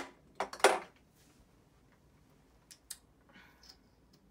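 Small makeup items handled close to the microphone: a sharp click and a couple of short scrapes at the start, then two faint ticks and a soft rustle near the middle.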